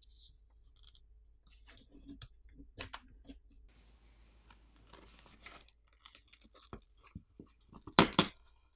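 Plastic backplate of a Samsung Galaxy M55 phone being pried off its heat-softened adhesive with plastic pry tools. Scattered small clicks and crackles, a soft hiss for a couple of seconds in the middle, and a louder burst of crackling near the end as the backplate comes away.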